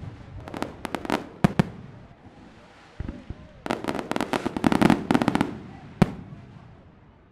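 Fireworks going off: several sharp bangs in the first two seconds, then a dense run of rapid cracks from about three and a half to five and a half seconds in, and one last single bang about six seconds in.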